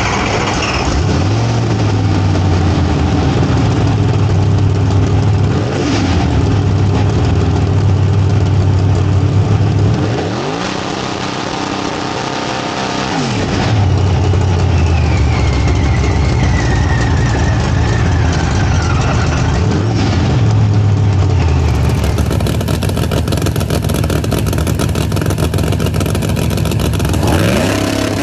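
Supercharged big-block Chevy drag engine (ProLine 481X with an F3 ProCharger) in a Pro Mod Camaro, revved up and dropped back several times during the burnout and staging. A high whine slides down in pitch midway, and the revs climb sharply again near the end.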